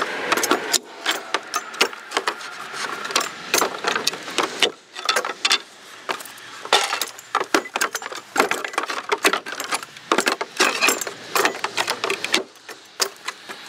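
Steel pallet buster prying deck boards off a wooden pallet: a dense, irregular run of sharp metal-on-wood knocks and clanks, with the wood creaking as the nailed boards lift away.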